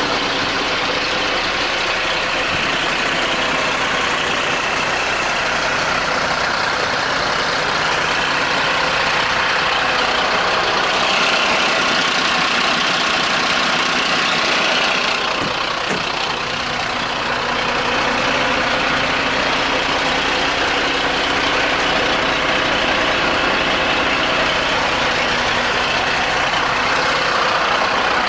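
Mercedes-Benz Atego fire engine's diesel engine idling steadily.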